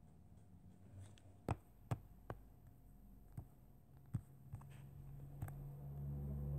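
Light taps of a finger or stylus on a tablet's touchscreen, about seven scattered clicks while drawing and zooming. A low hum builds up in the last couple of seconds.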